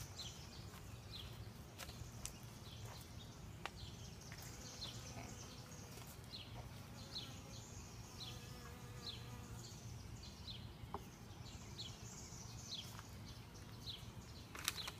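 Low steady buzzing of a package of honeybees, with a small bird chirping over and over in short falling notes and a few faint clicks.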